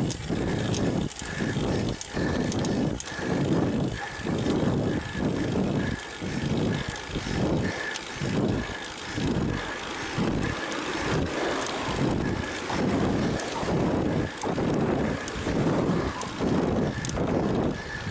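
A cyclist's heavy, rhythmic breathing, about one breath a second, labored from pedaling hard uphill.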